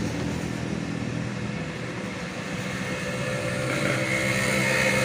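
Steady mechanical motor drone, with a higher whine joining about four seconds in.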